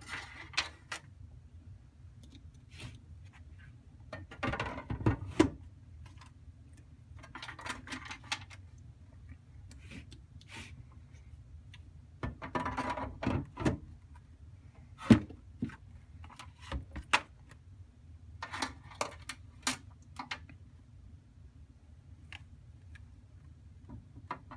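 12 V batteries being handled and slid into a metal battery tray: scattered clicks, knocks and scraping, in short clusters, with a sharp knock about five seconds in and the loudest one about fifteen seconds in.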